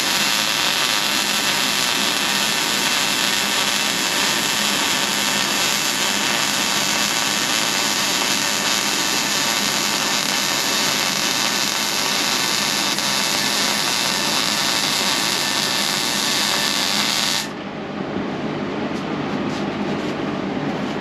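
Wire-feed (MIG) welder running a continuous bead on a beveled butt joint in a steel truck frame rail: a steady crackling hiss that cuts off suddenly about seventeen seconds in, leaving a lower hum.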